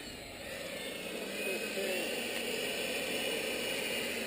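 Electric ducted fan of a radio-controlled Aermacchi MB-339 model jet spooling up to full throttle. It builds over about the first second into a steady rushing whine.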